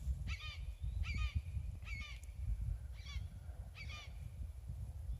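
A hawk calling over and over, five short, downward-slurred calls about one a second that stop about four seconds in, over a low rumble.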